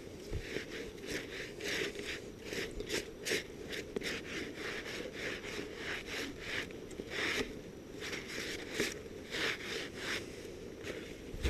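Footsteps of a hiker walking on a trail under about an inch of snow, a steady crunching pace of roughly two steps a second.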